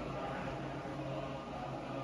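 A group of voices chanting in unison on a steady, low, held pitch: Buddhist chanting at a Thai forest temple.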